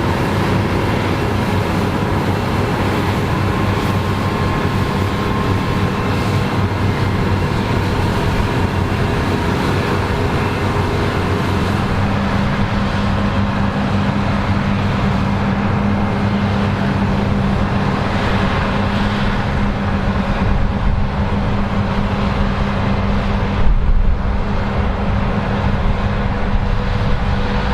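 Combine harvester running steadily while harvesting, with a loud engine and machinery hum. About halfway through, the hum settles into a stronger steady low tone, and a brief low thump comes near the end.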